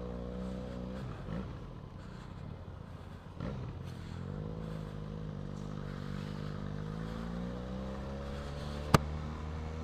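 Benelli 502C's parallel-twin engine running as the motorcycle rides off, its pitch dipping twice early on and then climbing and holding steady. A single sharp click comes near the end.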